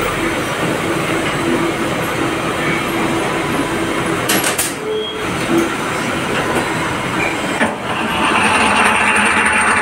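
Steady running noise of CNC machinery in a machine shop, with a few sharp clicks and a short high beep about four to five seconds in. About eight seconds in the machine noise grows louder and brighter, with a steady whine.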